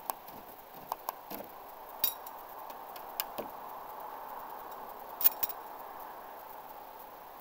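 Steel throwing knives clinking against each other as they are pulled from a wooden target board and carried off: a string of short, sharp metallic clinks, the loudest about five seconds in.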